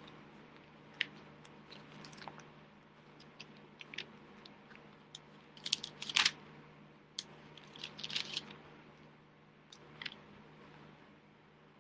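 Irregular soft clicks, taps and rustles from a man signing in sign language: his hands and sleeves brushing and striking, with lip smacks and breaths, over a low steady hum. There are louder rustling bursts about six and eight seconds in.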